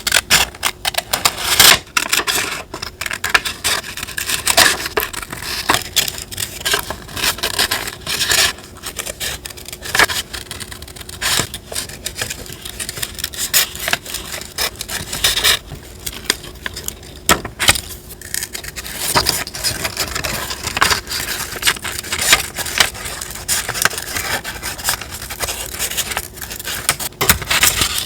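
Close-miked paper handling for a collage journal: paper and stickers being rustled, crinkled and scraped, with frequent small irregular clicks and taps.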